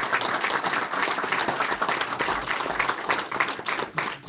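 Small audience applauding, dense clapping that dies away at the end.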